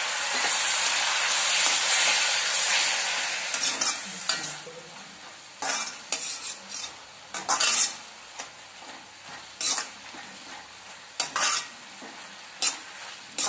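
Vegetables stir-frying in an iron kadhai: a loud sizzle as freshly added soy sauce and white vinegar hit the hot pan, dying down after about four seconds. After that comes a quieter sizzle, with a perforated steel spatula scraping and tossing against the pan in separate strokes every second or two.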